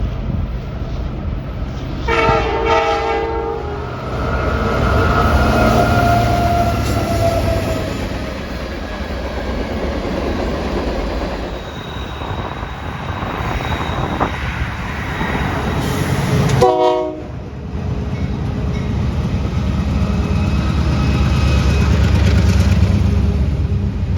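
Locomotive air horn giving a short salute, a chord of several notes, about two seconds in, then a second brief toot later on. Under it a train passes with a steady low rumble of engine and wheels on the rails.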